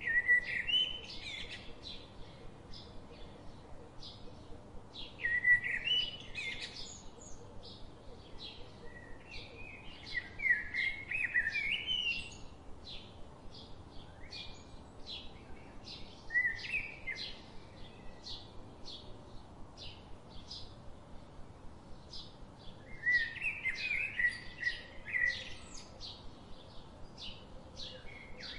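Birds chirping: a steady run of short, high chirps about two a second, broken several times by louder warbling song phrases.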